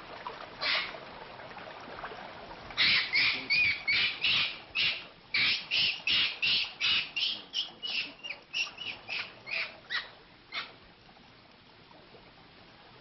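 A rapid series of short, high, squawking animal calls, a little over two a second, starting a few seconds in and trailing off near the end, after one lone call just before.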